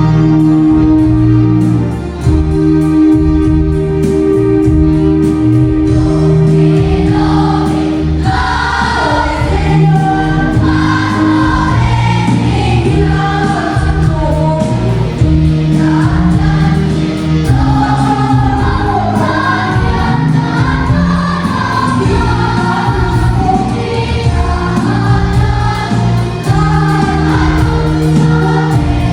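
Gospel choir music: sustained instrumental chords open alone, and a choir comes in singing about eight seconds in.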